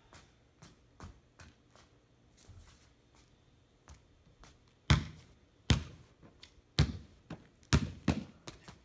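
A basketball bouncing on a paved patio: faint taps at first, then a run of loud bounces about a second apart from halfway through.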